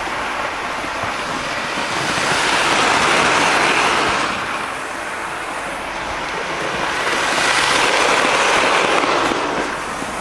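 Hornby Railroad A4 'Mallard' OO gauge model locomotive hauling three coaches on sectional track: a steady whirring, rumbling run of motor and wheels on the rails, swelling twice as the train passes close by.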